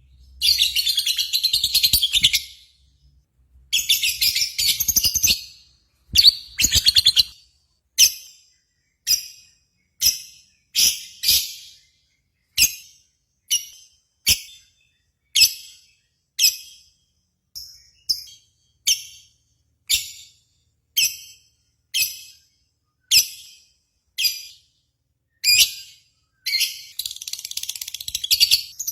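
Small songbird calling in high, rapid chattering bursts, then a long run of short, sharp repeated calls about one a second, then rapid chattering again near the end.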